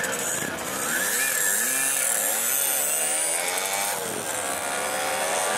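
Several small two-stroke moped engines buzzing and revving, their pitch swinging up and down as the riders open and close the throttle. About four seconds in, one engine climbs steadily in pitch as it pulls away.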